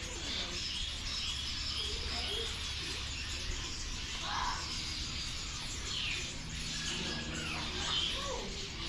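Many caged birds chirping and calling over one another, short overlapping calls throughout, with a steady low hum underneath.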